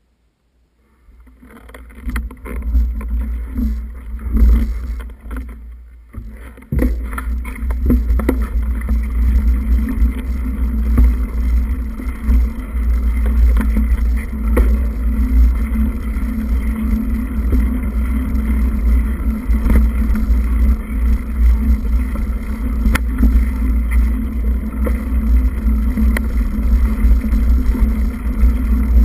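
Continuous rumble and rattle of a camera travelling along a dirt forest trail, with a steady low hum and scattered clicks and knocks. It starts about a second in, after near silence.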